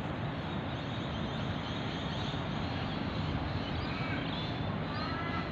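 Steady outdoor background noise. From about three and a half seconds in, a bird chirps a run of short, high calls.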